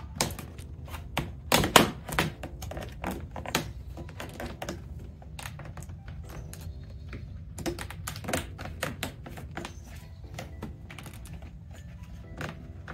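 Irregular clicks and taps of a shatterproof plastic in-channel window visor being flexed and pressed into a car door's window channel by hand, with the loudest cluster about two seconds in.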